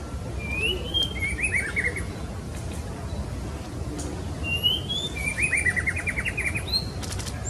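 White-rumped shama (murai batu) song, given as a female calling to a male. There are two phrases, each a rising whistled note followed by a quick run of short descending notes, with faint high notes above. A steady low background noise runs underneath.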